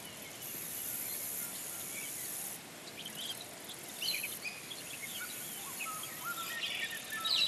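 Birds chirping and calling over a high, steady insect hiss. The chirps start about three seconds in and grow busier toward the end.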